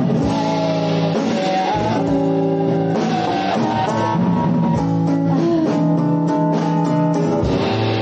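Live band playing, guitar to the fore over a drum kit, in a steady groove of held notes and regular drum hits.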